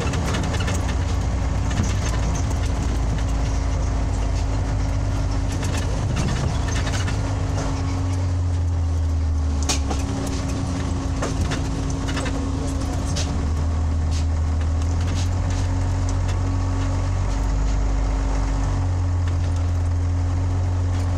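Inside the cabin of a Scania OmniLink CL94UB city bus under way: its diesel engine drones low, the pitch stepping up and down several times as the bus speeds up and slows. A steady hum runs underneath, with scattered clicks and rattles from the body.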